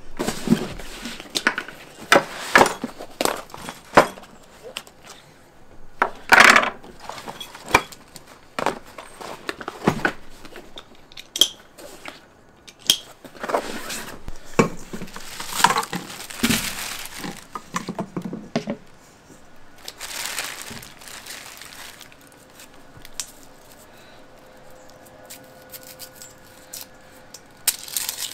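Kitchen things being set down and handled on a wooden cutting board: a run of knocks and clatter, with longer stretches of plastic-bag rustling in the middle. It turns quieter for the last few seconds.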